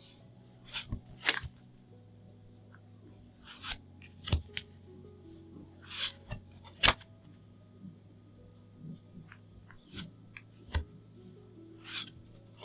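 Plastic trading-card sleeves and their packaging being handled and opened: irregular short taps, clicks and crinkles, the sharpest about seven seconds in and at the very end.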